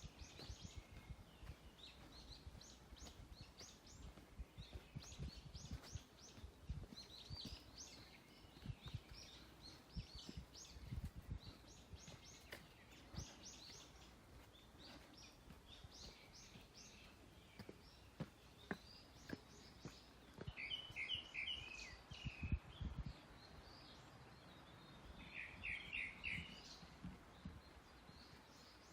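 Forest birds singing: short phrases of high, thin, quickly repeated notes throughout, joined twice in the second half by a lower, faster chirping series. Soft low thuds sound underneath.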